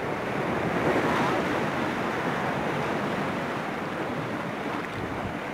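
Rough monsoon sea surf washing and breaking along a rocky shore, a steady rushing noise that is a little louder about a second in.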